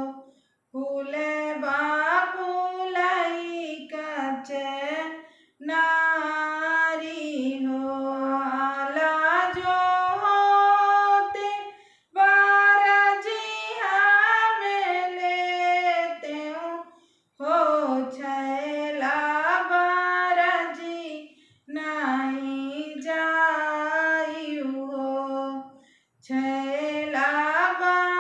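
A woman singing a Bagheli wedding folk song solo and unaccompanied, in phrases of about four to five seconds with short breaks for breath between them.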